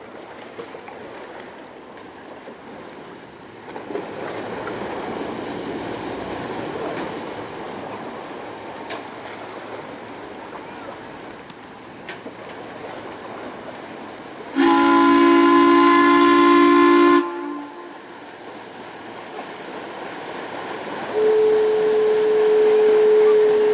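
A lake paddle steamer's steam whistle sounds once for about two and a half seconds, a loud chord of several notes, over steady background noise. About four seconds later a second whistle sounds a single steady note for about three seconds.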